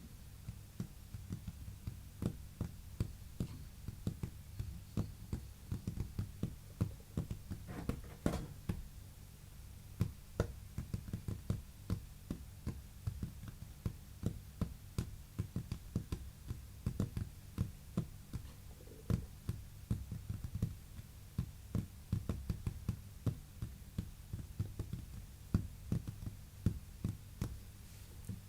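Close-miked tapping and knocking, irregular, several light taps a second, over a steady low hum.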